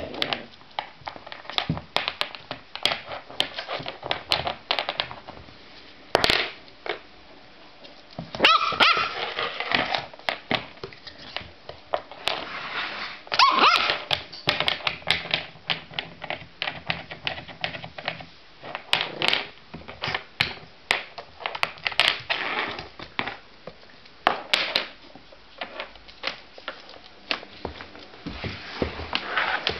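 Border terrier puppy playing on a wooden floor: a busy run of clicks and taps from its claws and scrabbling, with a couple of short barks.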